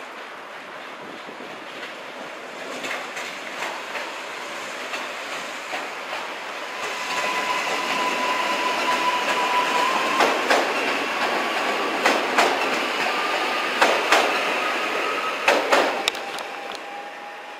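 A regional electric multiple unit passing at close range: a steady running rumble that builds up, with a thin high whine and pairs of sharp clicks as its wheels cross rail joints.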